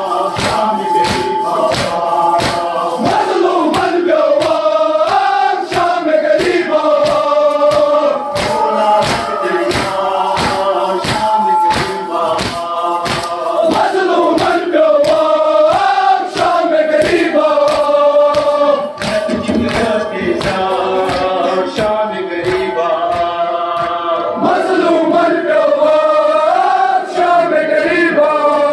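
A group of men chanting a Shia noha (mourning lament) in unison, the melody rising and falling, over a steady beat of sharp strikes that keeps time with the chant: the rhythmic chest-beating (matam) of Muharram mourners.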